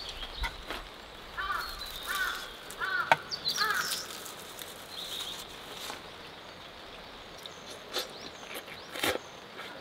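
A crow cawing four or five times in quick succession from about a second and a half in, over outdoor background with other birds chirping. A few light sharp clicks come later.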